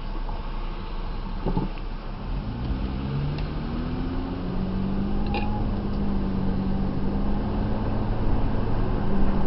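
Car engine and road noise heard from inside the cabin as the car pulls away and accelerates. The engine note rises over a few seconds, then holds steady while the overall sound grows louder.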